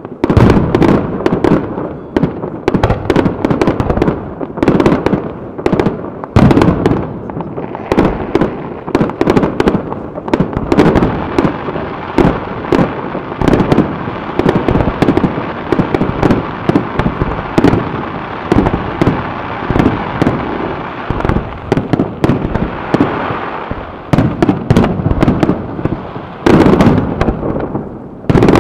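Fireworks display: aerial shells bursting in quick succession, many sharp bangs with a continuous crackle between them. The crackling is densest through the middle, and a run of heavy bangs comes near the end.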